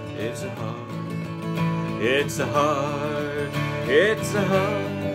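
Acoustic guitar strumming a folk accompaniment. A wavering held melody note comes in over it about two seconds in and again about four seconds in.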